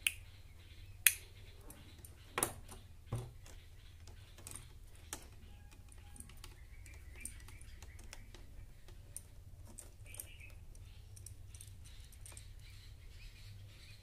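Small sharp clicks and taps from handling a plastic doorbell switch, wires and a screwdriver tester while wiring the switch: four loud clicks in the first few seconds, the loudest about a second in, then fainter scattered ticks. A steady low hum runs underneath.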